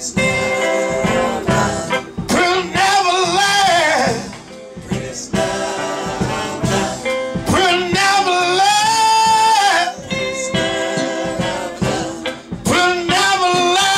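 Live soul band music with saxophone and singing. The lead holds long, wavering notes, the longest about two-thirds of the way through.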